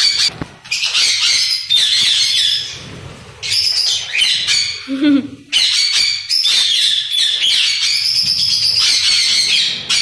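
A flock of budgerigars and other small pet parrots in cages and an aviary, screeching and chattering loudly and almost without pause. They are agitated while escaped birds are being chased and netted around the room.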